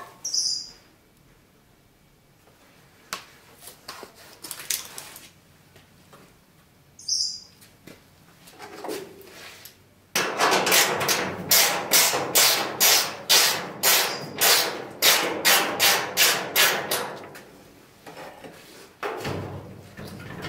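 A few scattered light knocks, then from about halfway a fast, steady run of hammer blows, roughly three a second for some seven seconds, on the sheet-metal panel at a 1957 VW Beetle's rear wheel arch.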